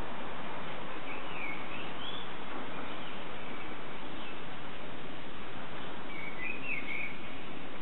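Steady hiss of outdoor background noise, with short chirping bird calls twice: about a second in and again near the end.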